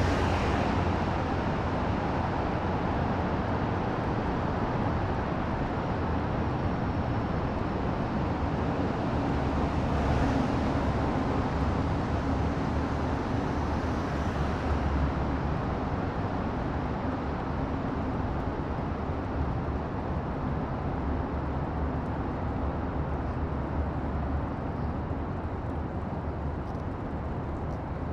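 Steady low rumble with an even hiss and a faint hum through the middle, the sound of a running vehicle.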